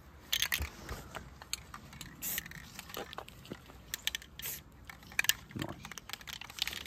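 Aerosol spray-paint can hissing in several short bursts, with light crunching and clicks in between.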